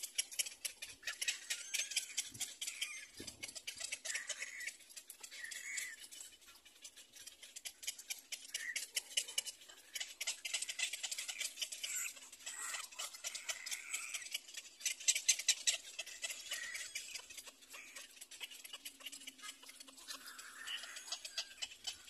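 Cormorant chick begging at the nest: long trains of rapid dry clicking, with short calls mixed in between them.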